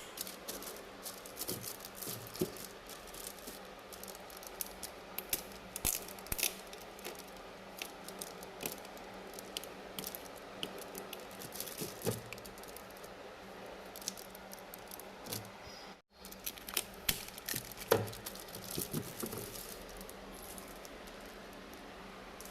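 Scattered small clicks, taps and light rattles of objects being handled, over a steady faint hum. The sound drops out for a moment about two-thirds of the way through.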